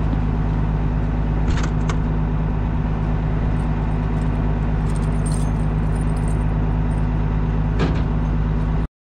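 A vehicle running with a steady drone, with brief jingling rattles about a second and a half in and again near the end. The sound cuts off suddenly just before the end.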